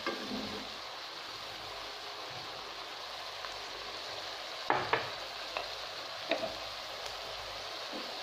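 Cubed eggplant frying in oil with garlic, tomato and spices in a non-stick pan, a steady sizzle. A few short knocks of a wooden spoon against the pan come a little past halfway.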